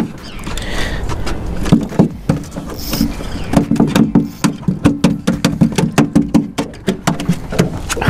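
A freshly landed redfish (red drum) flopping on a fiberglass boat deck: a fast, irregular run of slaps and knocks. Through the middle of it comes a low pulsing croak in short runs, the drumming call that red drum make when taken from the water.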